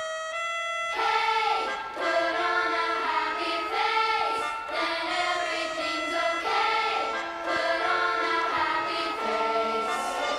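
Music with high voices singing over steady held notes.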